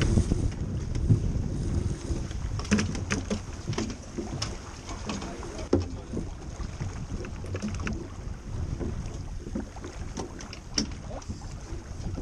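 A small boat under way, with wind buffeting the microphone, water rushing against the hull, and scattered knocks and clicks from the boat's fittings.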